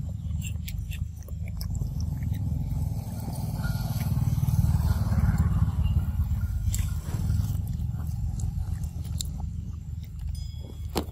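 Close-up chewing and biting of a baby monkey eating a slice of fruit, with scattered small clicks over a steady low rumble that swells midway.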